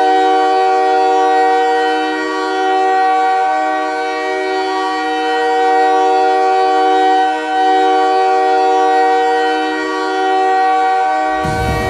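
Montreal Canadiens' arena goal horn sounding one long, steady blast, several horn notes held together as a chord, signalling a home goal. Near the end the goal song's bass beat comes in under it.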